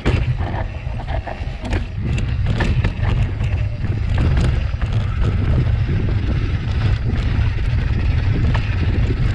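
Wind buffeting the microphone of a camera on a mountain bike riding down a rough natural trail, with the bike rattling and knocking in short, scattered clicks over the ground.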